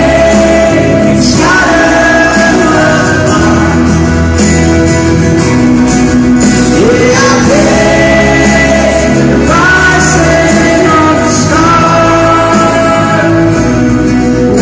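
Live pop-rock band with a male lead singer, recorded on a phone from the crowd: long held sung notes over guitar and a steady bass, loud throughout.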